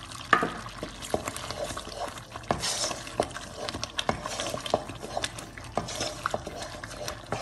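Wooden spoon stirring a thick milk and tikhur pudding in a non-stick kadhai, with irregular knocks and scrapes against the pan. A sharp knock comes about a third of a second in.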